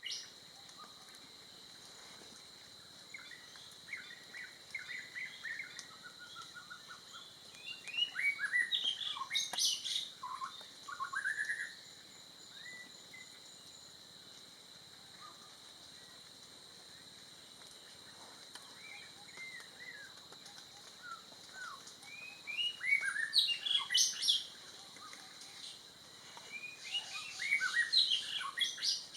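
Several forest birds chirping and whistling in short, varied calls, busiest about a third of the way in and again near the end, over a steady thin high-pitched whine.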